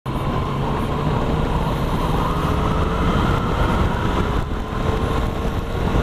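Motorcycle engine running steadily under way, its pitch easing down slightly, with wind rushing over the helmet camera's microphone.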